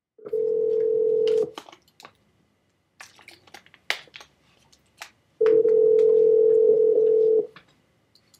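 Telephone ringback tone heard over a phone's speaker: a steady two-note ring sounds twice, a short burst near the start and a two-second ring about four seconds later, which signals that the outgoing call is ringing at the other end. Scattered clicks and handling knocks fall in the gap between the rings.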